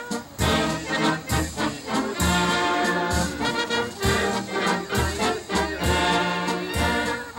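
A German brass band of about thirty players, with trumpets, trombones and clarinets, playing a lively, rhythmic tune.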